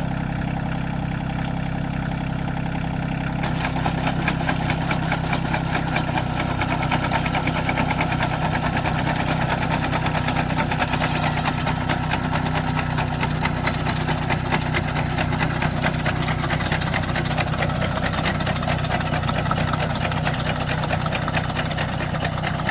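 Kioti CS2210 compact tractor's diesel engine running steadily as it pulls a Terrain potato digger. About three and a half seconds in, a dense metallic rattle from the digger's shaker joins in as digging begins.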